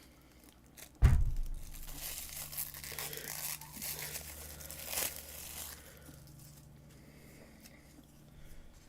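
A thump about a second in, then a few seconds of crinkling, tearing rustle that dies away after about six seconds: paper or plastic being handled.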